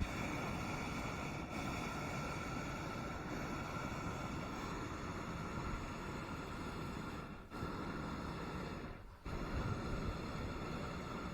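Hot air balloon's propane burner firing: a loud, steady roar with a whistling tone in it, starting suddenly and cutting out twice for a moment near the end.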